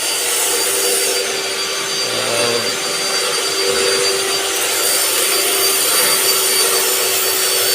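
A motor-driven machine running steadily: an even, loud whirring hiss with a constant hum underneath.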